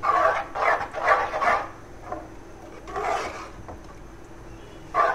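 Metal spoon stirring and scraping chicken mince in a steel pot. It comes in separate strokes, three in quick succession at the start and another about three seconds in.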